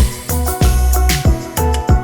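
Background music with a steady beat, deep bass and drums.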